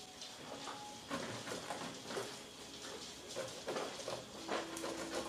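Seven-week-old poodle puppies stirring in their pen: soft, irregular rustles, scratches and small taps as they move on the bedding and floor mat.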